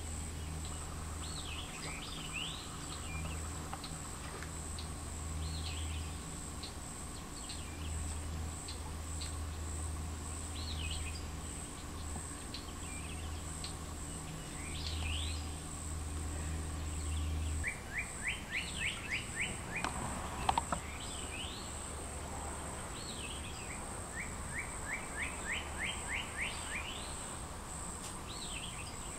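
Songbirds calling outdoors over a steady high-pitched buzz. Twice, a little over halfway through and again near the end, a bird gives a quick run of about eight rising notes. A low hum underneath stops about two thirds of the way in.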